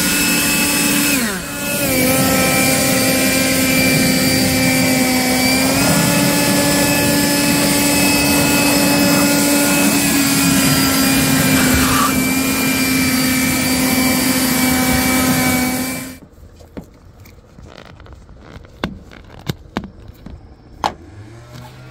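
Kobalt 40V cordless leaf blower running at full blast, blowing water off a car's paintwork, with a steady motor whine. Its pitch dips briefly about a second in, and it shuts off about three-quarters of the way through, leaving a few light clicks and taps.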